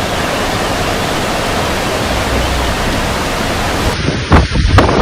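Steady, loud rushing noise of a storm, with cyclone wind and pouring water blending into one even roar. About four seconds in it cuts to gusts buffeting the microphone in a few heavy low thumps.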